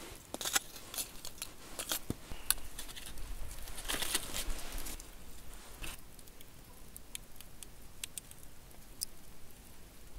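Small wood campfire crackling, with irregular sharp pops and snaps and a denser patch of crackling about four seconds in.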